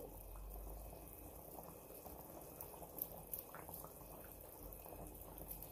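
Lamb curry simmering in a pan, a faint steady bubbling. A few faint light clicks come from a knife slicing green chillies over the pan.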